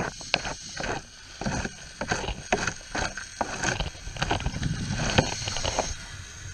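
Underwater handling noise: irregular clicks and knocks, several a second, as a scuba diver's gloved hand and camera move against a submerged sign, over a low rumbling background. The clicks thin out near the end.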